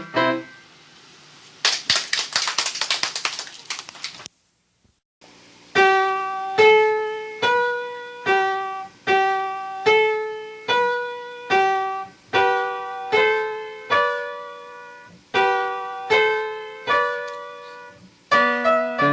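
Piano solo: the last notes of one piece die away, a few seconds of clattering noise follow, and after a short silence a slow, quiet melody of single notes begins, about one note a second; lower notes join near the end.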